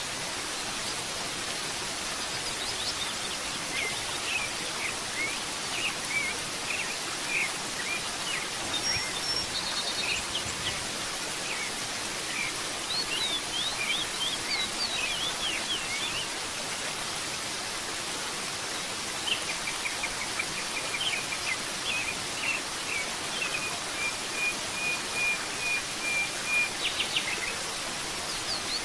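Steady rushing hiss of a waterfall, with songbirds chirping over it in several bouts and one bird holding a steady trill near the end.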